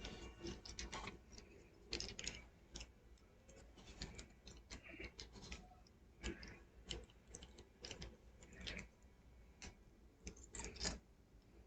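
Faint, irregular clicks and light scrapes of hard plastic model-kit parts being handled and pressed together.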